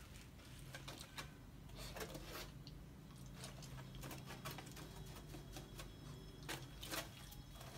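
Puppy chewing frozen raw chicken bones: irregular faint crunches and clicks, with a few louder cracks near the end.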